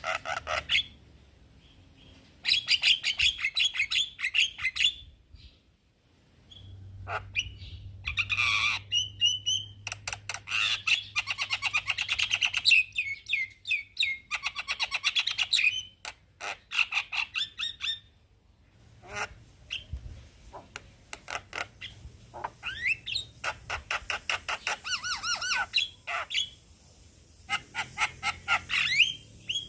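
Male Javan myna (jalak kebo) singing: bursts of rapid, harsh chattering notes mixed with short rising whistles, broken by brief pauses.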